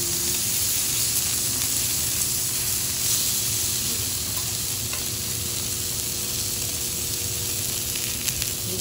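Pieces of Olive Wagyu fillet steak sizzling steadily on a hot flat steel teppanyaki griddle, their fat and juices frying against the metal.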